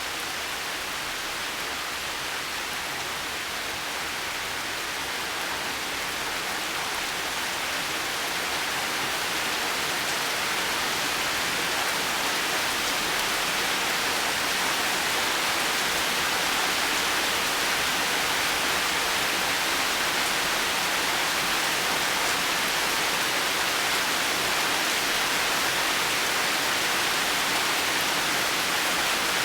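Heavy rain falling in a forest, a steady dense hiss that grows a little louder over the first dozen seconds.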